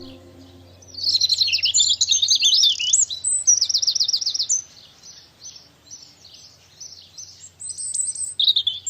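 A small songbird singing: a loud, rapid twittering song of quick high trills for about three and a half seconds, then softer chirps repeated at an even pace, with a higher call near the end.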